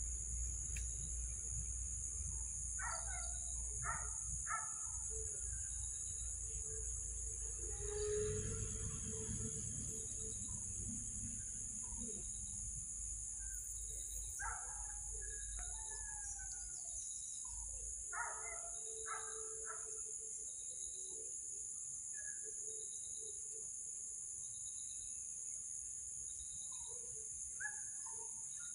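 Outdoor ambience of insects shrilling in a steady high-pitched drone, with a small bird calling in short phrases of quick notes a few times. A faint high chirp repeats about every second and a half.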